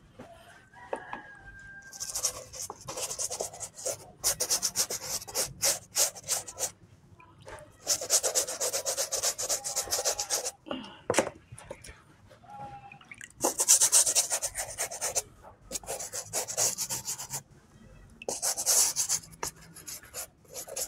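A stiff hand brush scrubbing the wet rubber sole of a canvas sneaker in fast back-and-forth strokes. The scrubbing comes in about six bursts of one to two and a half seconds, with short pauses between them.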